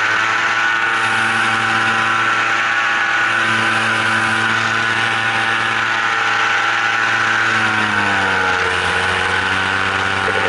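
Engine running steadily, its pitch dropping slightly about eight seconds in and then holding lower.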